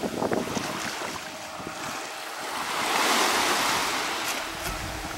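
Wind on the microphone over sea water, with the distant radio-controlled speedboat running across the water. A broad hiss swells and fades about halfway through, and a faint thin steady tone from the boat comes in later.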